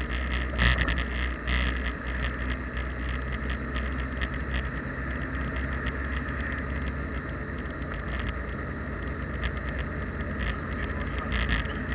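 Steady low engine and tyre rumble inside a moving car, heard from a dashcam, with many short light clicks over it.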